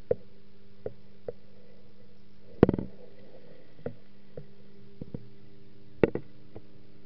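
A steady low hum of several even tones, broken by scattered short clicks and knocks at irregular times. The loudest knocks come in a quick cluster about two and a half seconds in, with another near six seconds.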